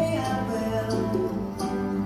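Recorded country-style song with plucked guitar and a singing voice, played back for a lip-sync act.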